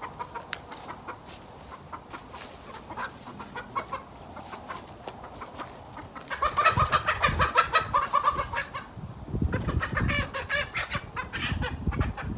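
A hen squawking loudly in alarm while being chased and grabbed at: a rapid run of harsh, repeated calls starts about six seconds in, pauses briefly, then starts again. Low thuds of movement run under the calls.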